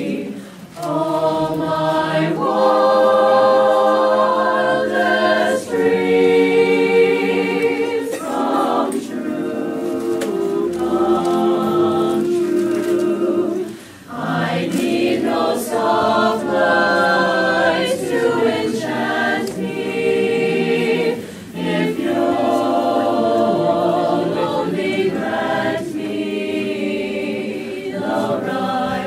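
Mixed choir of teenage boys and girls singing a cappella in several-part harmony. The singing is held in long notes and breaks off briefly between phrases, about a second in, near the middle and about three-quarters of the way through.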